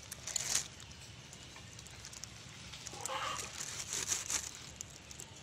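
Faint rustling and scraping of a plastic sheet and a kitchen knife as raw chicken is cut up by hand, a few short bursts of it over a low background hum.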